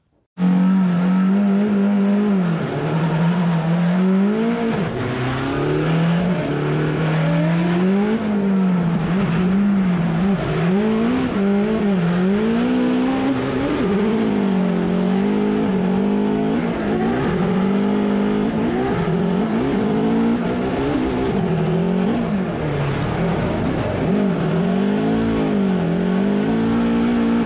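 Toyota Corolla drift car's four-cylinder 2AR race engine heard from inside the cabin, its revs rising and falling over and over through a drift, with tyre noise underneath.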